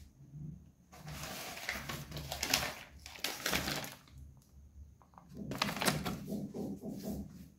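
Plastic grocery packaging crinkling and rustling as it is handled, in two spells of a couple of seconds each.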